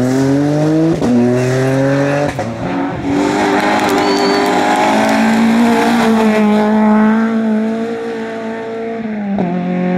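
Rally car engines at full throttle: first a Ford Fiesta rally car accelerating away, its engine note climbing with quick upshifts. Then a Peugeot 106 rally car held at high revs as it comes through and past, with a brief tyre squeal, its note dropping near the end.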